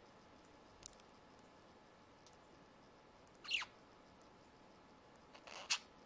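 Budgerigars chirping: one quick chirp falling in pitch about three and a half seconds in, and a short chirp with a sharp click near the end. A faint click about a second in.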